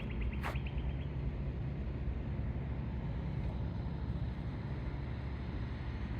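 Steady low rumble of distant engine noise, with a fast, even ticking trill during the first second.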